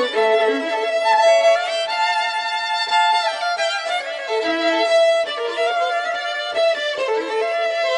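Background music: a melody of long held notes over a sustained accompaniment, with no bass.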